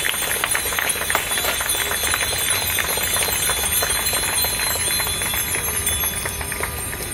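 A crowd clapping, a dense irregular patter that dies away near the end, over a low rumble.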